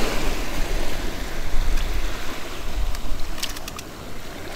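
Wind buffeting the microphone over the wash of surf on the beach, with a quick run of light clicks about three and a half seconds in.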